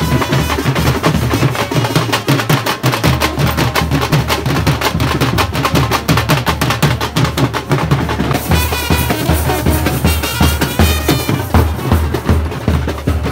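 Loud, fast drumming from dhol drums over a steady bass line, with no break. A wavering high melody joins about eight seconds in and drops out again near eleven seconds.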